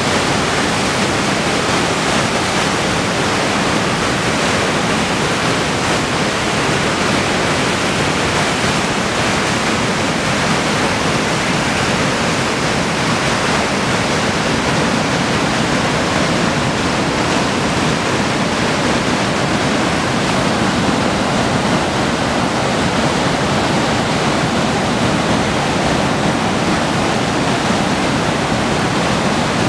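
River in spate rushing through rapids and over a waterfall: a steady, even rush of white water.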